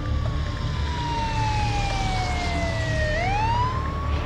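Emergency vehicle siren wailing in a long, slow falling sweep that turns and rises again about three seconds in, over a steady low rumble.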